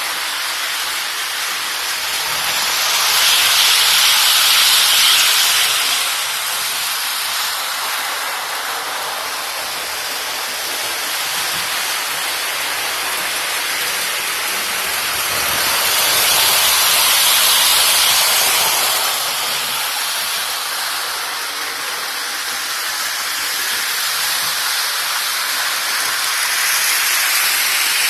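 Model trains running on a layout: a steady whirring, hissing rolling noise of wheels and motors on the track. It swells louder and fades back three times as trains pass close by.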